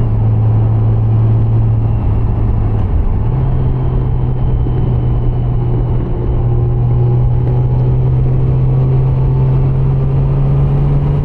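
2013 Honda Gold Wing GL1800 motorcycle cruising on the road: a steady engine drone with road and wind rumble. The drone steps up slightly in pitch about three seconds in.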